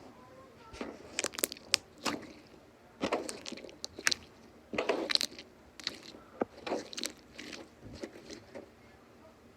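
Slime being squeezed and worked in the hands, giving irregular wet squelches and sharp crackling pops of air.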